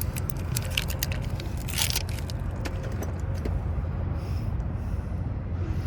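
Clicks and scraping of hand tools working in a punctured tire, with a brief harsher scrape about two seconds in, over a steady low hum.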